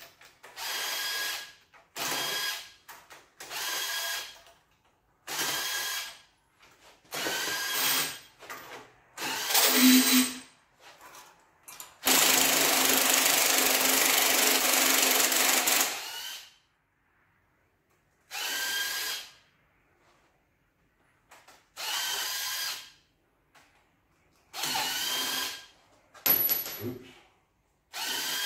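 Air tool run in repeated bursts of about a second each, with one longer run of about four seconds midway, spinning bolts out of the cylinder head of a 5.9 Magnum V8.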